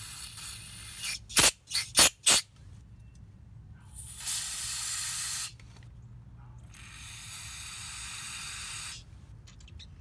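Aerosol cleaner spray can hissing into a small VW N80 EVAP purge valve to flush out the dirt jamming it. A short spray is followed by a quick run of four or five sharp spurts. Then come two longer steady sprays, each one to two seconds long.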